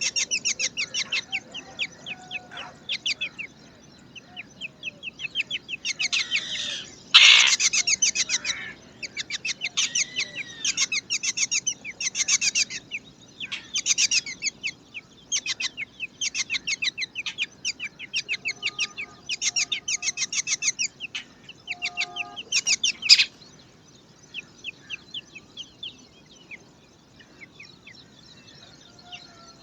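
Black drongo chicks begging in the nest: long trains of short, high, rapid chirps. A louder, harsher burst of calling comes about seven seconds in and again about twenty-three seconds in, and the calling thins out near the end.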